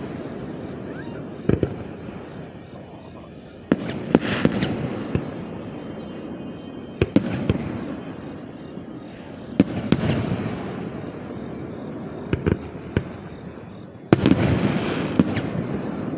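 Aerial fireworks shells bursting overhead in a run of sharp bangs, each trailing off in a long rumbling echo. The biggest bursts come about four seconds in, around ten seconds, and near the end, with smaller cracks and pops between them.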